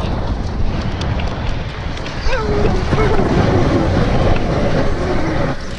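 Wind buffeting an action-camera microphone as an inflatable snow tube slides fast downhill over snow, a steady loud rush. A person's voice cries out briefly about two seconds in.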